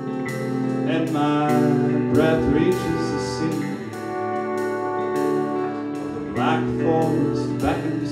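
Live band playing a song: electric guitar, drum kit with a steady cymbal beat, and sustained chords underneath, with a man singing in two phrases, one in the first few seconds and one near the end.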